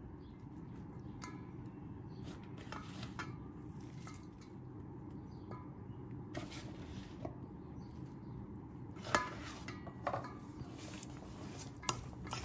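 Food and a utensil in a stainless steel mixing bowl: scattered light clicks and clinks as chopped vegetables go in and the filling is stirred, with the loudest knock about nine seconds in.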